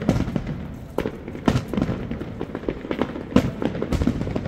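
Fireworks display going off: a rapid, irregular string of bangs and crackles, with a few much louder bangs standing out among them.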